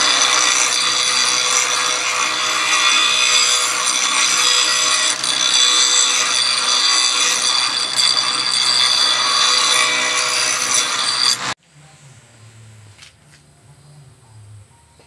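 Grinding wheel biting into a hardened leaf-spring steel spear blade: a loud, steady, harsh high grinding noise that cuts off abruptly about three quarters of the way through. A much quieter, uneven low hum follows.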